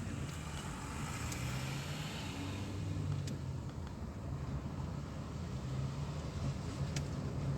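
A car's engine running with a steady low hum, with a few faint clicks.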